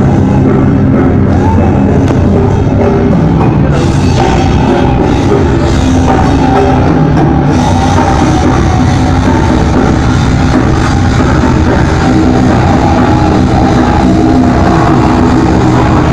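Live rock band playing at full volume, with a drum kit pounding under distorted guitars, held at a steady, overloaded level.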